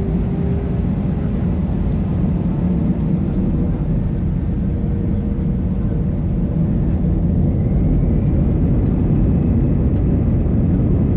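Airbus A320 engine and cabin noise heard from a window seat over the wing while the airliner taxis: a steady low rumble, with a faint whine rising near the end.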